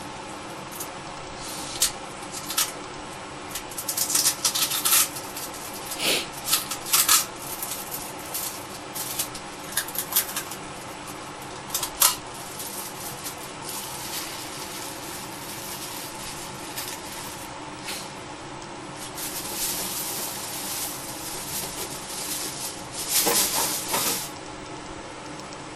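A pet cockatiel moving about its cage: scattered scratches, clicks and rustles, in clusters around 4 to 7 seconds in and again near the end, over a steady background hum.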